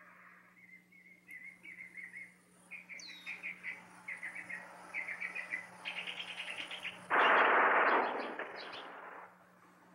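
Small birds chirping in short repeated trills, then about seven seconds in a sudden, louder burst of rapid gunfire lasting about two seconds.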